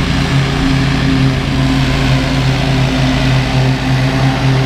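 Toro Grandstand stand-on mower's engine running steadily at cutting speed with the blades engaged, cutting wet, tall grass.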